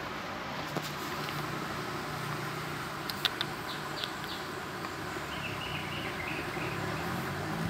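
Steady background hum and hiss, with a couple of sharp clicks about three seconds in and a few short, high chirps in the second half.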